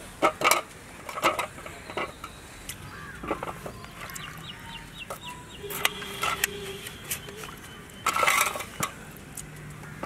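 Chickens clucking in short bursts, loudest near the start and about eight seconds in. Light knife clicks against a steel plate as potatoes are cut into wedges.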